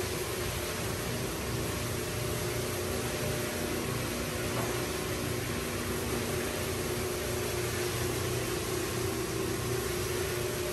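Single-disc rotary floor buffer running steadily while screening a hardwood floor: a constant motor hum over the even hiss of the spinning pad on the wood.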